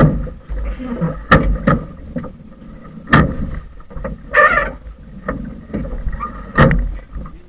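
Wind rumbling on the microphone aboard a metal boat, broken by several sharp knocks and bangs, the loudest near the start, about three seconds in and near the end.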